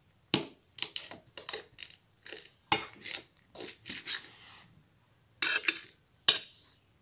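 Metal spoon clinking and scraping against a stainless steel bowl as it stirs wet canned cat food: a string of sharp, irregular clicks, a pause about two-thirds through, then a few more clinks and one sharp one near the end.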